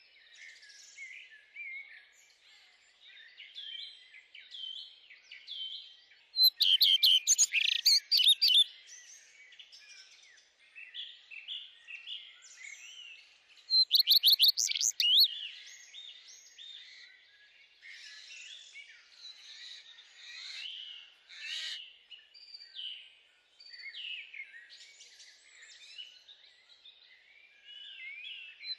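Songbirds chirping and singing, with a stream of short varied calls and two loud, rapid trilled songs, the first about six seconds in and the second about fourteen seconds in.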